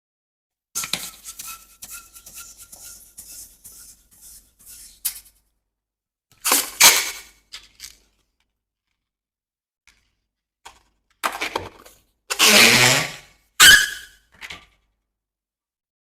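Rubber balloons crackling and popping in several separate bursts, cut apart by dead silence: a stretch of small crackles first, then loud bursts about six and twelve seconds in, and a sharp pop shortly after the second.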